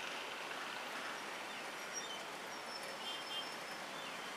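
Steady traffic noise from a crowd of motorcycles waiting at a railway level crossing, with a few faint high chirps in the middle.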